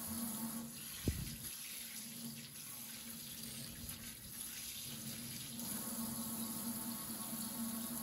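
Water running from a faucet into a stainless steel sink and down the garbage disposal drain, with a single sharp knock about a second in.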